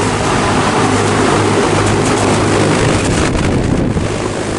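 Heat pump outdoor units running in heat mode: a steady low compressor hum under the even rush of the condenser fan.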